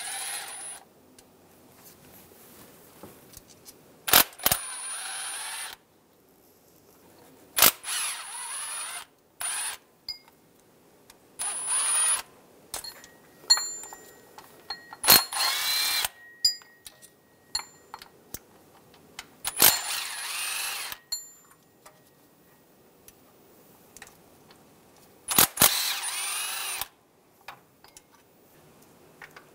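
Cordless power tool with a 10 mm socket spinning out the water pump bolts on a 3.6 L V6: about seven short runs of a second or so each, with a whine that rises and falls, and small metallic clicks in the pauses between them.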